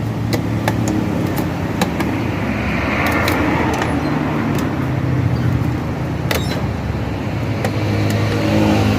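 A motor running steadily with a low hum, with scattered sharp clicks and a brief hiss about three seconds in.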